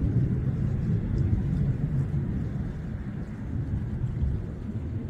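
Low, uneven rumble of wind on the microphone.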